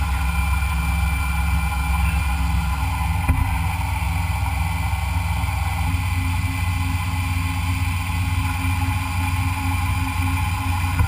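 Machine tool running steadily during machining, a constant motor hum with a few steady higher tones and a single click about three seconds in.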